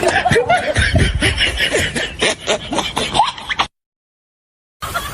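A laughing sound effect with short pitch glides and clicks, cut off abruptly partway through, then a second of dead silence before the next effect begins near the end.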